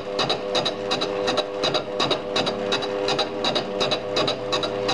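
Fly cutter spinning in a lathe chuck, its single tool taking an interrupted cut across the end of a cylinder casting. It makes a sharp tick once per revolution, about three a second, over the steady hum of the lathe's motor and gearing.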